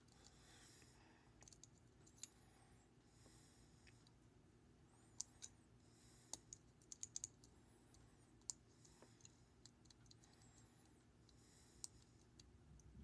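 Small, sharp metallic clicks of a pick working the rotating discs inside a Master No. 40 disc-detainer padlock. The clicks come scattered and faint, with a quick run of them about seven seconds in.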